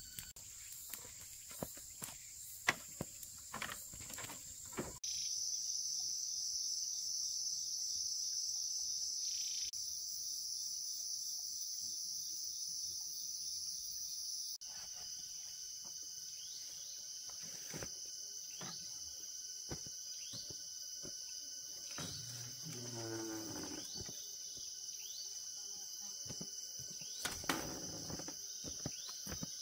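Steady high-pitched insect chorus, with scattered sharp knocks and taps.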